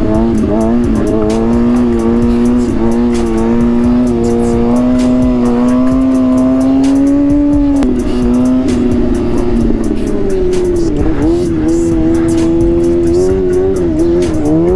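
Kawasaki ZX-6R 636 inline-four engine running under way with wind rush, its pitch climbing slowly, dropping sharply about eight seconds in, then wavering and rising again near the end.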